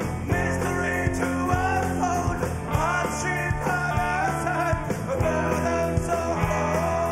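Rock band playing an instrumental passage with a steady drum beat and bass under a lead electric guitar line that bends up and down in pitch.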